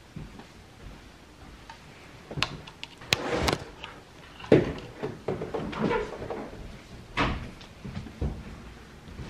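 Hands handling loose LED downlight fittings to switch them to their warm setting: a run of sharp clicks and knocks with rustling between, the loudest knock about halfway through.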